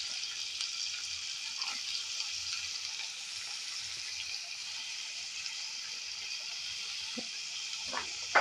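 Chopped onions sizzling in hot oil in an aluminium pressure cooker: a steady hiss. A few light knocks come near the end.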